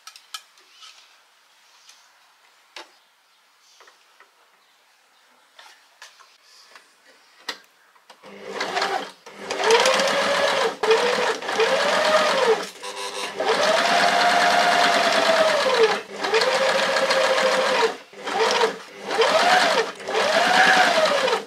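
Janome Sewist 725S sewing machine stitching in a series of short runs starting about eight seconds in. Its motor pitch rises and falls as the speed changes, with brief stops between runs. Before that there are only a few faint clicks.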